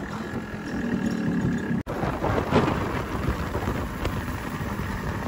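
Motorcycle on the move: steady engine rumble mixed with wind buffeting on the microphone, broken by a sudden brief gap about two seconds in.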